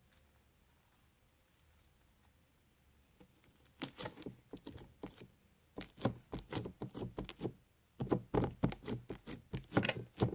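Crunchy slime made with Tide and Elmer's Magic Liquid being squeezed and pressed by hand. It gives dense crackling and popping clicks in three bouts, starting about four seconds in after a quiet start.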